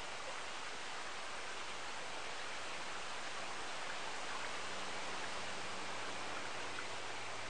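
Steady rushing woodland ambience, an even hiss with no distinct events, joined about halfway through by a faint low hum.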